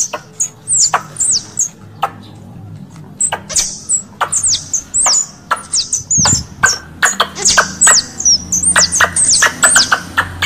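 Squirrel calls played as a hunting lure: a fast, irregular run of short, high-pitched chirps, each dipping in pitch, mixed with sharp clicks.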